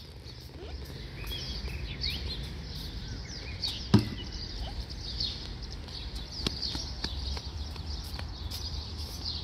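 Birds chirping over and over above a steady low rumble. About four seconds in comes a single sharp knock, a giant chess piece being set down on the board.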